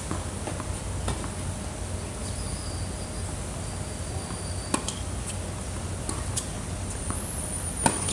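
Tennis racket striking the ball: a sharp serve hit about halfway through, fainter hits and bounces from the far end of the court, then another sharp hit near the end as the near player returns the ball. A steady hum and a thin high drone run underneath.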